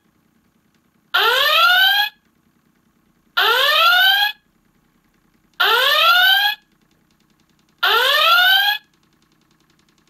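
ThinkGeek USS Enterprise door chime playing the Star Trek red alert klaxon through its small speaker: four rising whoops, each about a second long, repeating about every two seconds.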